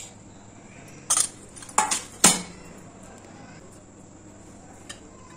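Sharp metallic clinks of steel kitchenware against a stainless steel mixing bowl: three knocks starting about a second in, the third the loudest, then a faint tick near the end.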